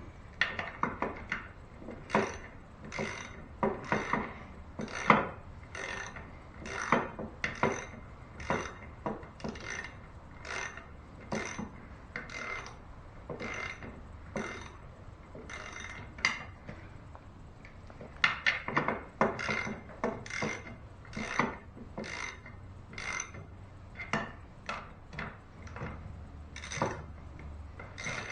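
Socket ratchet clicking in short back-and-forth strokes, about one to two a second, with a short pause about two-thirds of the way through, as the bolts holding an outboard's lower unit housing are tightened.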